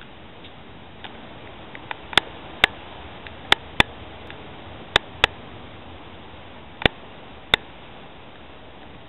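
Steel wheels of a Schynige Platte Railway rack train clicking over rail joints as the train rolls slowly: sharp clicks in pairs, four pairs a second or so apart, over a steady running noise.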